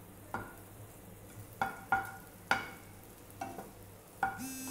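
Wooden spatula knocking and scraping against a nonstick frying pan about seven times, the pan ringing briefly after each knock, while a piece of butter melts and starts to foam with a faint sizzle. A brief buzzing tone comes right at the end.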